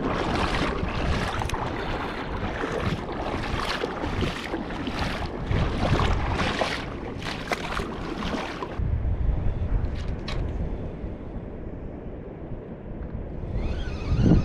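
Gusty wind buffeting the microphone: rushing, uneven noise for about the first nine seconds that then settles into a low rumble, with a couple of faint clicks about ten seconds in.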